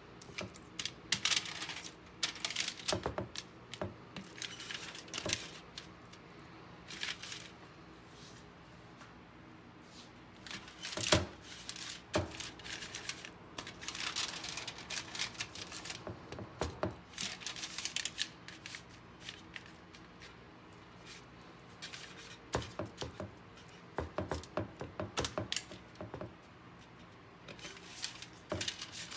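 Aluminium foil crinkling and crackling in irregular bursts as hands handle and rub marinated steaks lying on it, the loudest crackle about eleven seconds in. A faint steady hum runs underneath.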